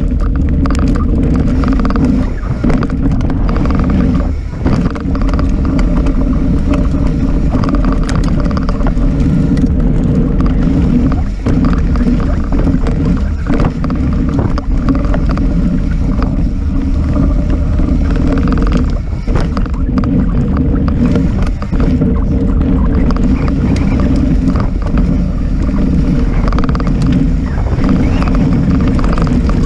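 Mountain bike riding fast down a gravel forest trail: steady wind rumble on the microphone over the hiss of knobbly tyres on loose gravel, with short knocks and rattles as the bike hits bumps.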